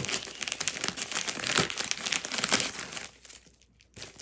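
Plastic bubble-wrap packaging crinkling as it is handled and opened by hand, in dense crackles that stop about three seconds in.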